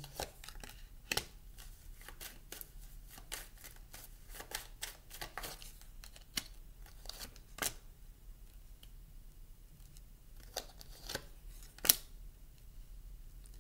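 Tarot cards being picked up, laid down and slid across a wooden tabletop: a string of short clicks and slaps, with one sharper slap near the end.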